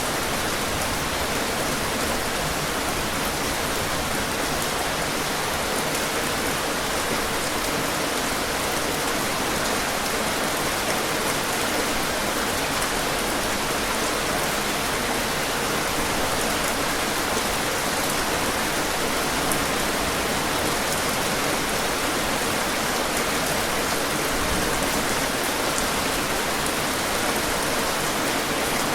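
Heavy rain pouring steadily, a dense even hiss of drops with faint individual drop ticks.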